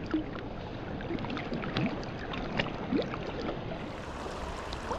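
River water running and gurgling around a raft, with small splashes and plops scattered through it.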